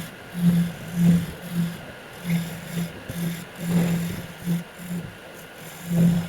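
Wood lathe spinning a workpiece while a hand tool scrapes and cuts the wood. A low hum swells and fades irregularly, roughly twice a second, as the tool bites.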